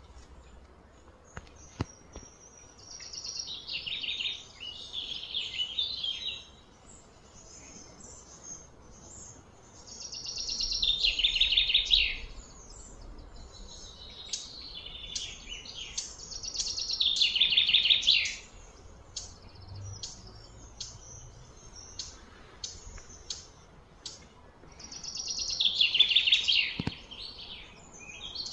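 High-pitched outdoor animal calls in four long bursts, each swelling over two to four seconds and then breaking off sharply, with a few faint ticks between them.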